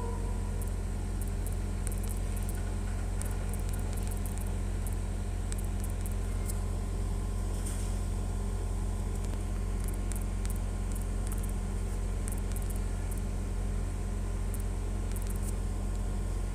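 Steady low background hum, with faint scattered clicks now and then.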